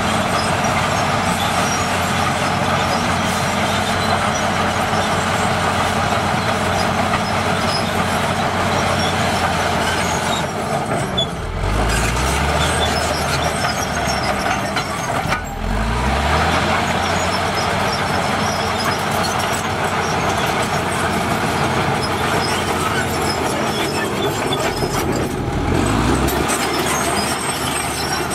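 Komatsu D65PX crawler bulldozer working under load, its diesel engine running loud and steady over the clatter of its steel tracks. Twice near the middle, and again near the end, the engine briefly drops and then climbs back up in pitch as the throttle comes back on.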